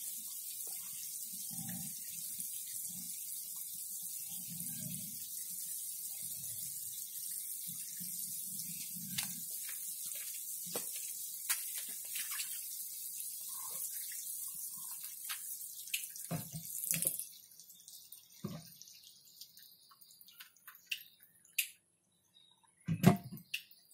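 Stream of water from a homemade pump's PVC outlet pipe pouring and splashing onto wet ground: a steady hiss that stops suddenly about 17 seconds in. After that come scattered clicks and knocks as the pump rig is handled, with one louder thump near the end.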